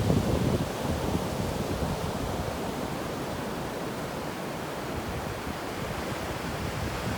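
Ocean surf washing in, a steady rush of waves that is a little louder in the first second and then evens out.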